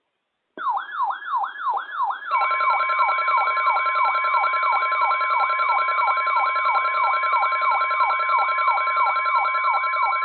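Weather radio alert tones: a siren-like alarm sweeping down in pitch about three times a second. About two seconds in it is joined by a steady high tone, the NOAA Weather Radio warning alarm, which signals that a warning broadcast follows.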